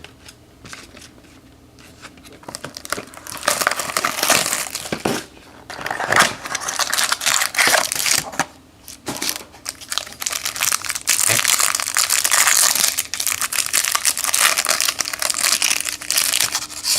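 Crinkling of a trading card pack wrapper being torn open and handled. It starts about three seconds in, as irregular rustling that becomes denser and louder in the second half.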